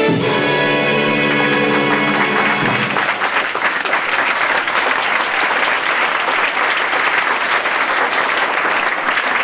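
Music ending on a long held chord, followed about three seconds in by an audience applauding.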